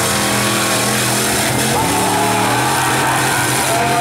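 V8 demolition derby cars' engines running together, a steady drone of several engines.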